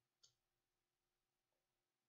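Near silence: faint room tone with one soft click about a quarter second in, from computer input.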